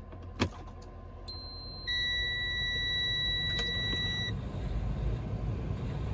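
A high electronic beep: one steady tone, held about three seconds and starting a little over a second in, over a low steady rumble. A single click comes just before it.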